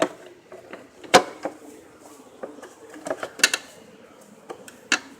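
Plastic engine-computer (ECU) cover of a Volvo S40 being handled and pressed into place: a series of sharp plastic clicks and knocks, the loudest about a second in and a quick cluster around three and a half seconds.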